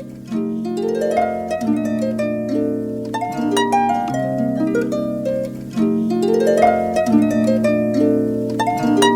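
Background music: a harp-like plucked instrument playing rising arpeggios in repeating phrases, with no drums.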